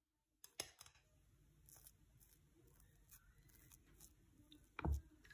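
Table knife spreading soft cream over bread on a plastic cutting board: faint scraping, with a few light clicks about half a second in and a soft knock near the end.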